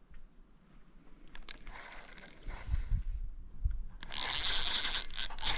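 Fishing reel drag clicking and buzzing as a hooked fish pulls line out, starting about four seconds in after a few faint knocks of handling.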